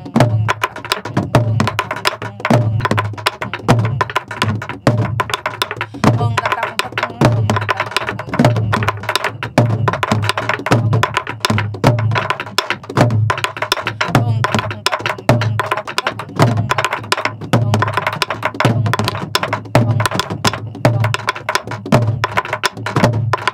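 Several sori-buk, Korean pansori barrel drums, played together in the fast hwimori rhythm: deep thumps of the palm on the drumhead under quick, sharp clicks of sticks on the wooden shell, in a steady, driving pattern.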